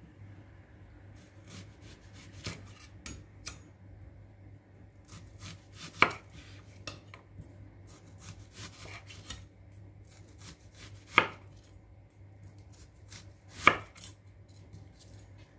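Chef's knife slicing a peeled onion into rings on a bamboo cutting board: small crisp crunching cuts, with three loud sharp knocks of the blade on the board, one near the middle and two towards the end.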